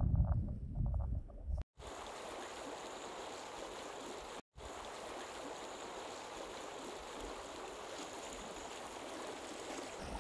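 Steady rushing of a small mountain stream flowing through a meadow. Before it, for the first second and a half, a louder low rumble with scattered knocks that cuts off abruptly.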